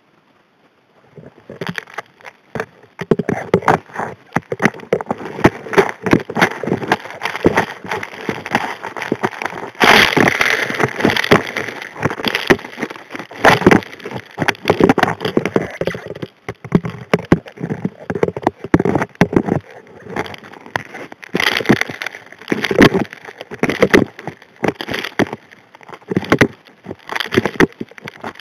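Model 625 HD P hand dredge's steel nozzle suctioning river gravel under water: a dense, irregular clatter of rocks knocking against the steel as they are sucked in. It starts about a second and a half in and gets louder from about ten seconds in.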